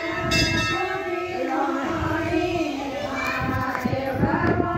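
Devotional singing with long, slowly gliding held notes. A temple bell rings right at the start, its ringing tones reaching high up.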